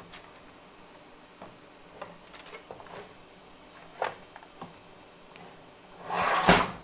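Handling noises: scattered small clicks and taps, then a loud brief rustle and thump about six seconds in.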